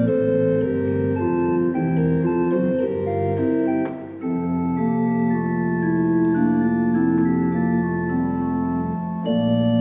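Church organ playing slow, held chords for the offertory of the Mass. There is a brief dip with a single click about four seconds in.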